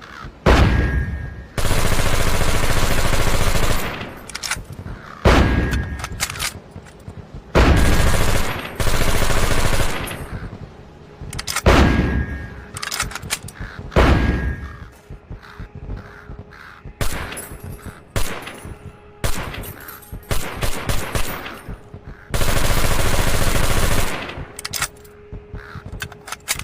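Nambu Type 1 submachine gun firing automatic bursts. There are several long bursts of about two seconds, the last one near the end, and a run of short bursts in between. Each burst trails off in a ringing tail.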